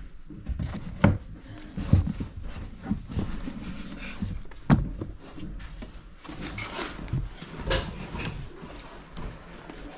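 Irregular knocks and bumps with rustling, from books, papers and boxes being handled and moved. The sharpest knocks come about a second in and just before the middle.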